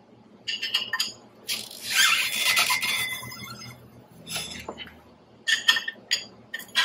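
Steel wrench clinking and rattling on the bolts of a tracked mower's drive sprocket as the wrench turns the sprocket assembly. There are a few sharp clinks, then a longer scraping rattle about a second and a half in, and another run of sharp clinks near the end.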